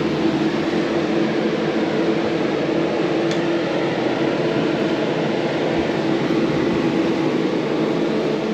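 Steady mechanical hum of a running motor, even and unbroken, with a single faint click about three seconds in.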